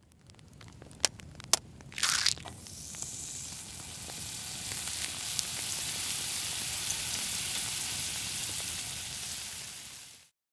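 Egg and bacon frying in a pan: a few sharp clicks and a short loud crackle about two seconds in, then a steady sizzle that builds and holds before fading out near the end.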